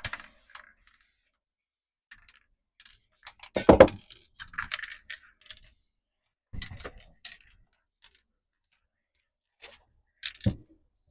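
Small objects being handled: a few separate knocks and clatters with brief rustling, the loudest a knock about four seconds in and another near the end, with quiet between.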